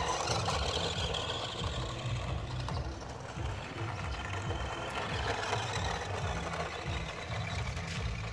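Remote-control toy Hummer 4x4 truck's small electric motor and plastic gears running steadily as it drives over dirt.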